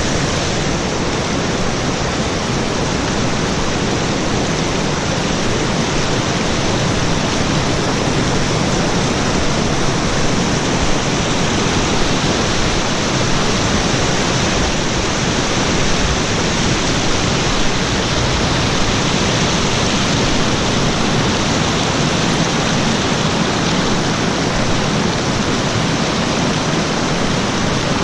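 Fast-flowing river pouring over a waterfall: a loud, steady rush of water with no change throughout.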